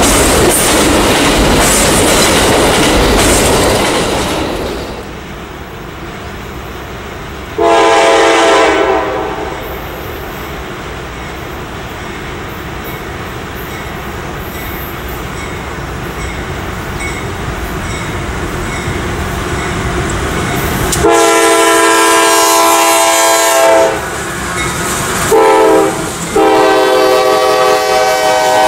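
Passenger train cars rolling past with a loud rumble and clatter that drops away about five seconds in. Then a freight diesel locomotive's multi-chime air horn: one blast about eight seconds in, then a long blast, a short one and another long one in the last eight seconds as the locomotive comes by, over the rumble of the train.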